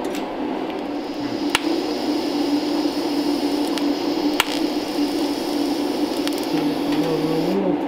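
TIG welding arc on sheet steel, a steady hiss and buzz, with a couple of sharp clicks.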